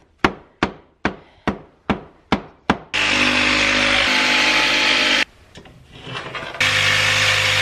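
A run of seven sharp knocks, about two a second. Then a handheld power tool's motor runs steadily while it cuts into the plywood edge of the bunk, with a short pause of quieter scraping before it starts again near the end.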